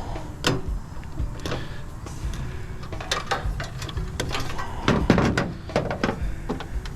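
Irregular clanks, knocks and rattles of metal parts being handled and pulled apart while a PTAC heater/air-conditioner is dismantled for scrap, with the loudest cluster of knocks about five seconds in.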